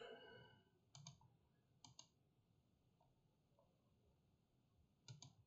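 Faint clicks of a computer mouse: three quick double clicks, about a second in, about two seconds in and near the end, over near silence.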